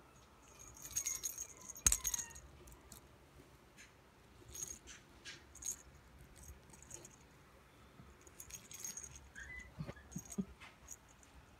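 A small bell in a dog toy jingling in several short bursts as a puppy plays with it, with light clicks and taps.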